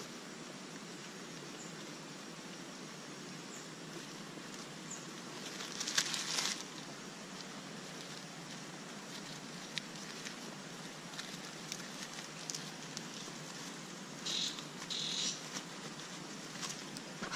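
Brief scratchy rustles and scrapes of a wooden stick and dry leaves being worked into a rock crevice, three or four short bursts with a few small ticks, over a steady faint hiss.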